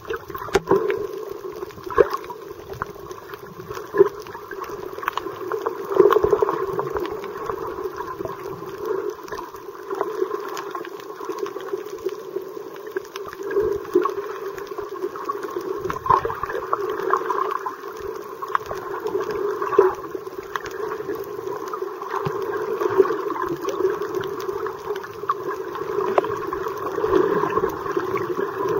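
Underwater sound picked up by a snorkeller's camera: a steady, muffled water noise with scattered sharp clicks.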